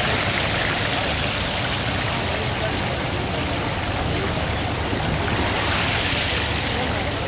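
Battered meat pieces deep-frying in a large wok of hot oil, the oil sizzling and bubbling steadily.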